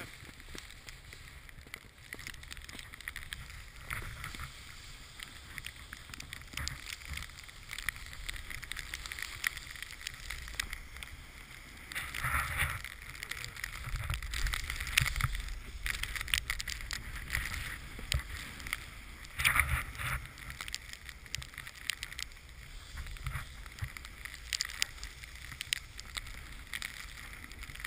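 Snowboard sliding over packed snow, its edges scraping and hissing in uneven surges as it carves, with wind rumbling on the camera's microphone.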